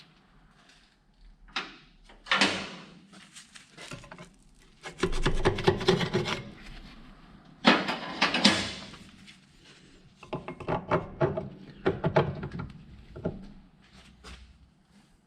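Small metal hardware and hand tools being handled: clusters of clicking and rattling, with short pauses between them, the densest run about five seconds in and another about eight seconds in.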